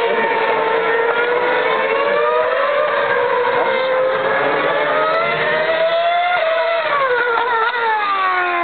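Open-wheel single-seater racing car's engine running hard at high revs, its pitch drifting up and down, then falling in a few quick wavering steps about seven seconds in as the car downshifts.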